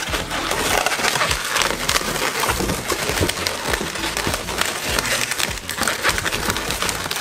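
Blue 260 latex twisting balloons being handled and pulled through a joint, squeaking and rubbing against each other in a continuous run of many short, crackly squeaks.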